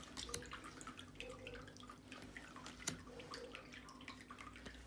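Tarot cards being handled and flipped through: faint, scattered soft clicks and taps of card stock, with one sharper tap about three seconds in.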